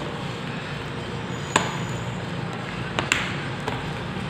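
A few sharp taps and knocks as a bubble-wrapped phone LCD screen and a phone body are handled and set down on the work surface: one about a second and a half in, and a couple close together around three seconds. A steady low hum runs underneath.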